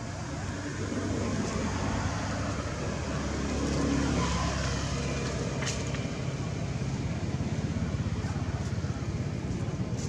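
A motor vehicle going past, its engine and road noise swelling to a peak about four seconds in, then a steady rumble.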